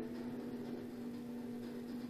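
Room tone: a steady electrical hum with a faint hiss, unchanging throughout.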